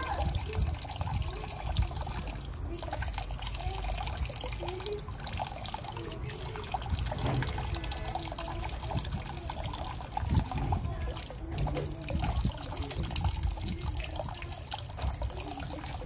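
A thin stream of water trickling down into a shallow basin of water, with splashing from rose-ringed parakeets bathing in it.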